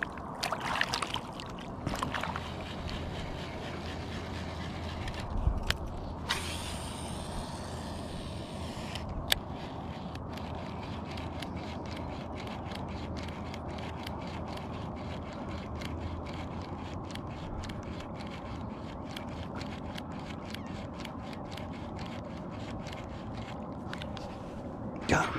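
Fishing reel on a casting rod: a cast whirs line off the spool for a few seconds, a sharp click follows as the reel is engaged, then the reel ticks steadily at about three to four clicks a second as the lure is cranked back in.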